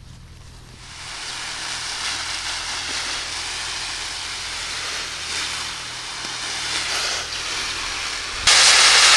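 A steady hiss that starts about a second in and becomes much louder near the end.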